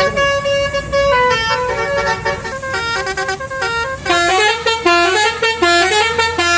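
Bus telolet basuri horn playing a tune of stepped notes, the notes quicker from about four seconds in, with a low steady hum joining beneath them.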